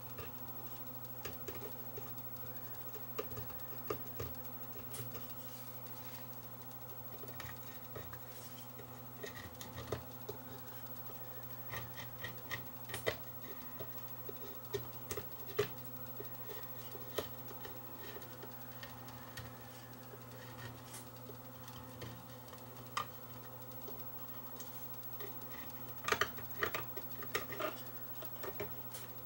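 Light scattered clicks and scratches of multimeter probe tips against a circuit board's solder side, busiest near the end, over a faint steady low hum.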